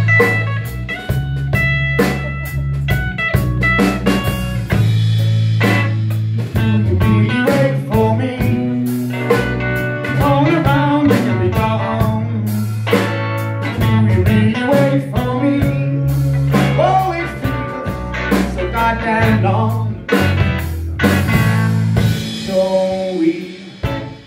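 Live blues-rock band playing: electric guitar, electric bass and drum kit, with a steady bass line and regular drum hits under bending guitar lines.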